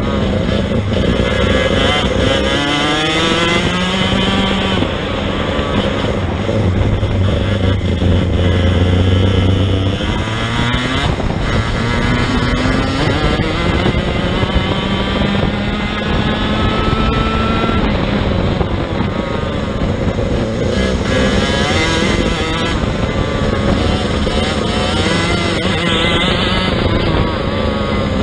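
Racing kart engine heard from on board, at full race pace. Its pitch climbs as it accelerates out of the corners and drops off when the driver lifts for the next bend, several times over.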